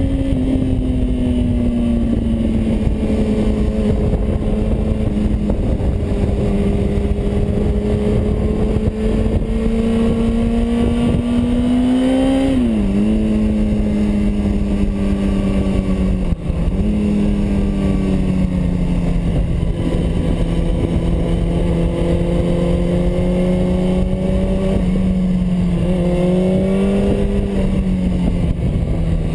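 Sport motorcycle engine running at steady revs while riding, heard from a camera on the bike with wind rushing over the microphone. The engine note rises and falls slowly and drops sharply about 13 seconds in and again about 16 seconds in, with a smaller drop near the end.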